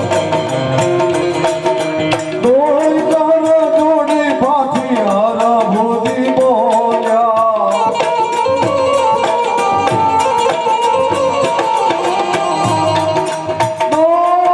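Live Gujarati folk music: a harmonium holds a melody while tabla and small hand cymbals keep a steady beat. A man's voice sings over it with gliding, wavering notes, strongest in the first half.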